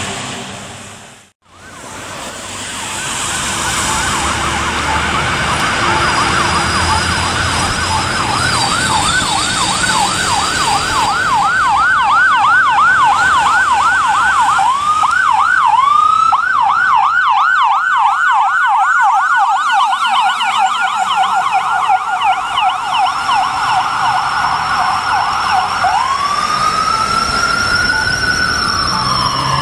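Ambulance's electronic siren, growing louder as it approaches, then cycling in a fast yelp for most of the time. Near the end it switches to a slow wail that rises and then falls.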